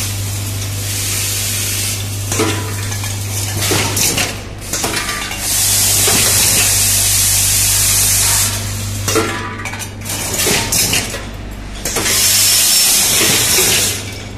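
Vibratory bowl feeder running with a steady electric hum while screws and small metal parts clink and rattle along its spiral track. Spells of hissing a few seconds long come and go over the top.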